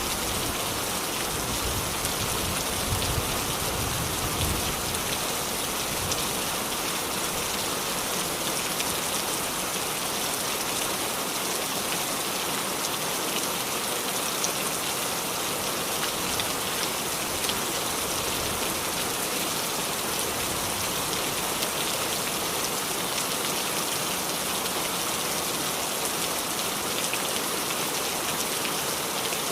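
Heavy rain falling steadily: a dense, even hiss of drops striking surfaces.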